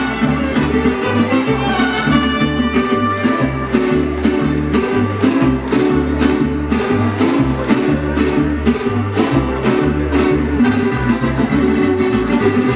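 Mariachi band playing an instrumental passage: violins carrying the melody over strummed vihuela and guitar, with a bass line of alternating low notes keeping a steady beat.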